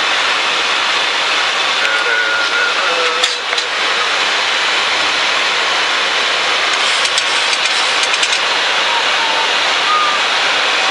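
Steady rushing cockpit noise of a Boeing 737-800 in flight, descending on approach: airflow over the nose and windscreens mixed with the engines, with a few faint clicks about two-thirds of the way through.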